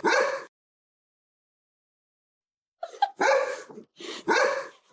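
Dog barking: one bark right at the start, a gap of dead silence lasting about two seconds, then two more loud barks in the second half.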